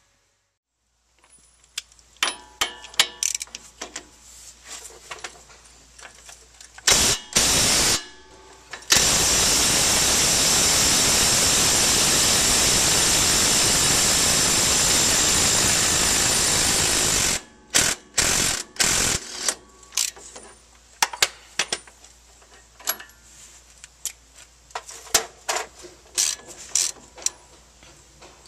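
Ryobi 18V 1/2-inch cordless impact wrench on a suspension fastener: two short bursts, then a steady run of about eight seconds that cuts off sharply, then two more short bursts. Before and after come scattered metal clicks and clinks of hand tools and ratchet work on the suspension parts.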